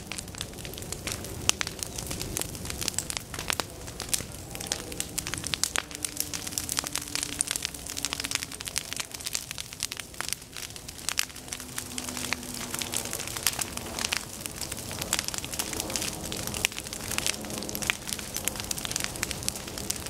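A grass-and-forb fire crackling and popping through dry standing goldenrod and prairie grasses during a prescribed burn. The quick, irregular snaps go on without a break over a steady low rush.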